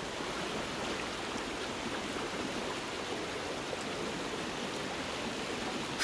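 River water rippling and rushing steadily over a shallow, stony bed.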